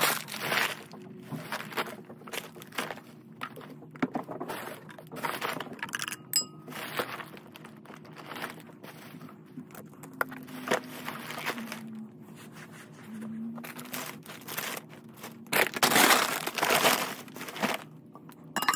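Thin plastic garbage bag crinkling and rustling in irregular bursts as trash is gathered and stuffed into it, loudest about three-quarters of the way in.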